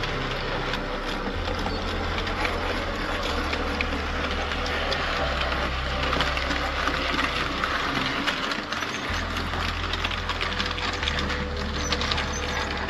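Model railway trains running: a dense patter of small clicks from wheels on the track over a low, steady hum.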